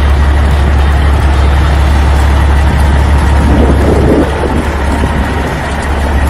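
Loud, steady engine running with a heavy low drone.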